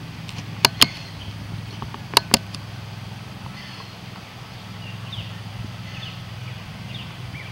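Two pairs of sharp, quick double clicks about a second and a half apart, over a steady low rumble, with a few faint, short high-pitched squeaks later on.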